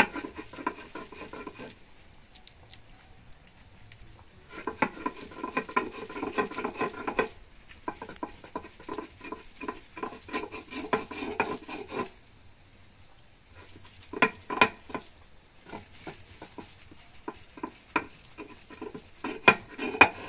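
Stone mano rubbed back and forth on a metate, grinding cooked chayote root into a thick paste: several runs of quick scraping strokes with short pauses between them.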